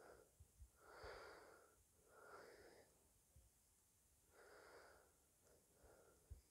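Near silence, with about four faint, short breathy sounds and a few soft taps.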